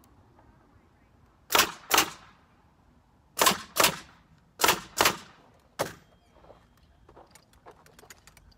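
Pneumatic framing nailer driving seven nails into wood framing, fired in quick pairs (two, two, two, then one) over about four seconds. Faint small clicks and handling noise follow.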